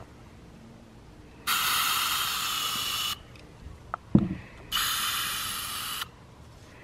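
Aerosol spray-paint can spraying blue paint into a plastic cap to build up a pool of paint, in two hissing bursts of about a second and a half each that start and stop sharply. Between the bursts there is a click and a short knock, the loudest moment.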